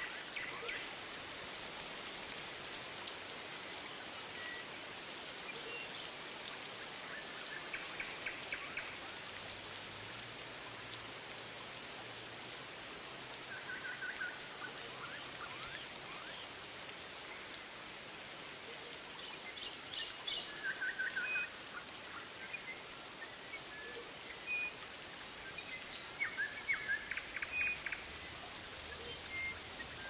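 Rainforest ambience: scattered bird chirps, trills and short repeated calls over a steady hiss.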